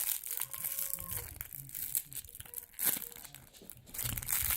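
Plastic toy wrapping crinkling and tearing as it is pulled open by hand, with many small irregular crackles.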